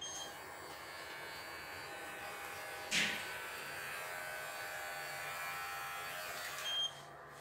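Electric pet hair clippers switch on and run with a steady buzz while trimming a puppy's poodle coat. There is a sharp tap about three seconds in, and the clippers stop near the end.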